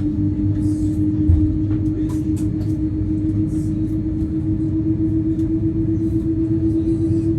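Boeing 787-9 cabin noise heard from inside: a steady low rumble with a hum that slowly rises in pitch, typical of an engine spooling up during start. Faint light clicks sound now and then.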